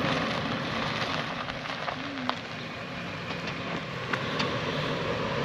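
Toyota 4Runner SUV driving slowly over a dry dirt and grass track: a steady low engine and tyre noise, with a few small clicks.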